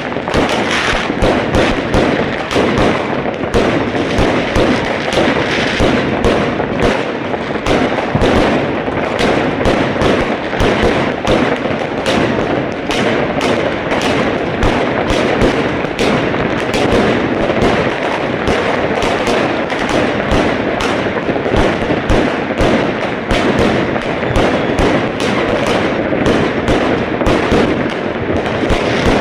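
Dense, unbroken barrage of fireworks and firecrackers, many bangs and cracks a second with no pause.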